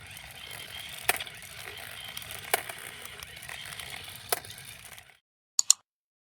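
A low hiss with three sharp clicks about a second and a half apart. The sound then cuts off suddenly to silence, broken by two quick clicks.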